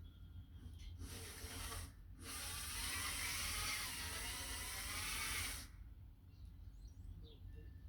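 Two bursts of hissing noise, a short one about a second in, then a louder one lasting about three seconds, over a steady low rumble.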